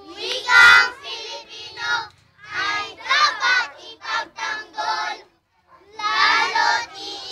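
Small group of young children singing an action song together in unison, in short phrases with brief pauses between them.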